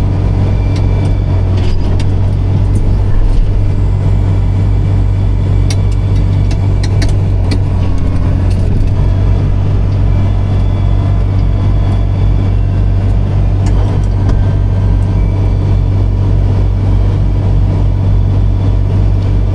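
Farm tractor's diesel engine running steadily: a loud, even, deep hum with a fast low pulse that does not change, and a few light clicks about six to seven seconds in.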